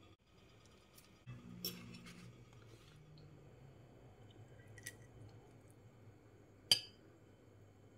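A metal fork clinking against a ceramic plate three times while breaking into a piece of fried fish. The sharpest, loudest clink comes near the end.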